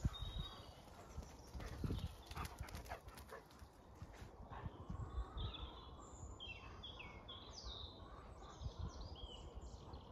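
Dawn chorus: several songbirds singing in short, clear, high phrases, busiest from about halfway through, over repeated low thuds.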